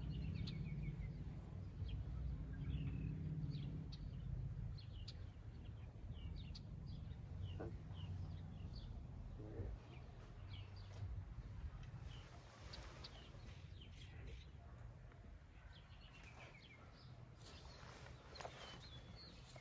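Birds chirping in short, scattered calls, over a low rumble that is loudest in the first few seconds and then eases.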